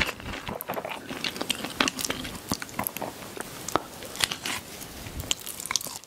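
A mini pig chewing: a run of irregular, crunchy clicks and crackles.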